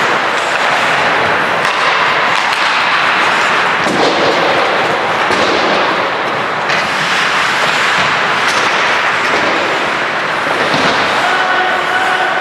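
Ice hockey play: a steady scrape of skates on the ice with frequent sharp clacks and knocks of sticks and puck.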